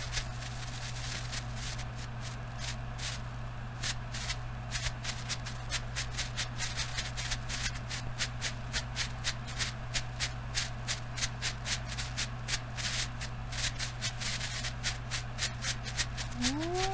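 Magnalium strobe pot firework burning, giving off a rapid, irregular string of sharp pops and crackles, several a second, one for each strobe flash. Near the end a wavering pitched call rises and falls.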